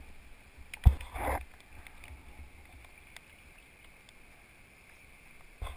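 A sharp knock about a second in, then scuffing and rubbing on an inflatable kayak as a person climbs aboard from the bank, with another thump near the end.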